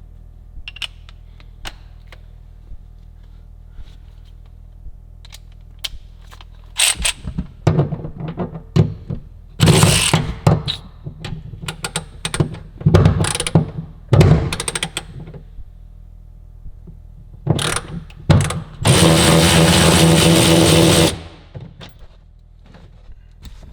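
Hand-tool work on car interior fasteners: scattered clicks and knocks with several short loud bursts, then a power drill/driver running steadily for about two seconds near the end.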